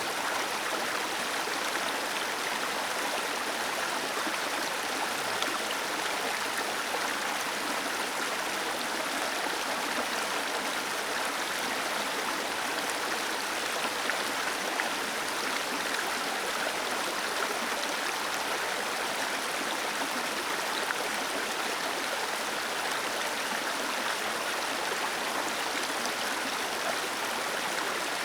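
Small waterfall and stream water splashing and rushing steadily, an even hiss with no breaks.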